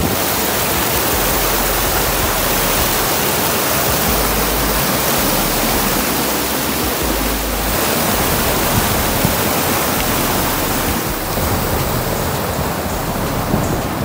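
Mountain stream cascading over boulders: a steady, dense rush of white water.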